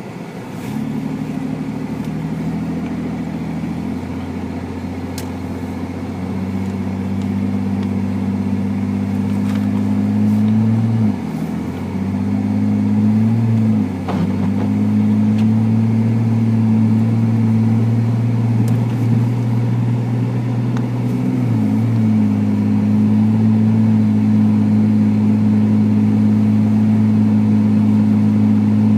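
Car engine running steadily, its pitch rising slowly, with three brief dips in pitch and loudness along the way.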